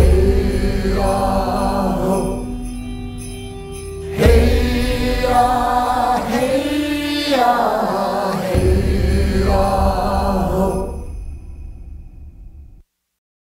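Closing bars of a song: wordless chanting voices swooping up and down over a low drone, fading out and stopping near the end.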